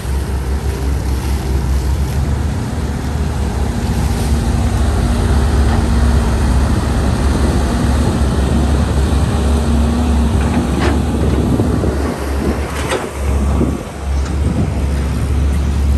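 Caterpillar 320 hydraulic excavator's diesel engine running under load as it digs, a deep steady rumble with a steady tone over it through the middle, and two sharp metallic clanks near the end.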